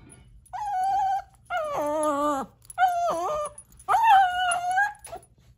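Mini Australian Shepherd puppy, eight weeks old, whining: four drawn-out high cries of about a second each, with short gaps between them.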